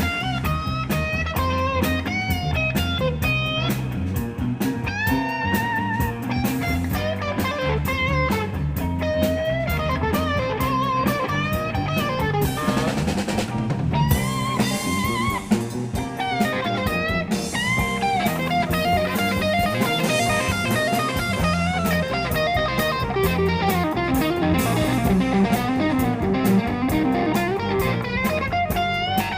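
Rock band playing: an electric guitar lead with bent, wavering notes over drum kit and bass.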